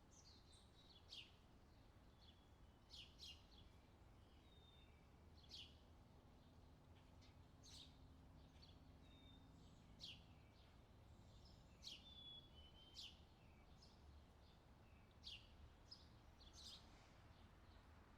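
Faint outdoor nature ambience with birds chirping: short, high, downward-sweeping chirps every second or two, mixed with brief whistled notes, over a steady low background rumble.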